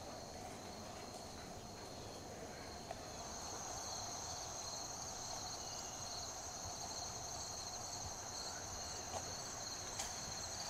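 Insects trilling steadily outdoors, a chorus at two high pitches; the higher one grows louder about three seconds in.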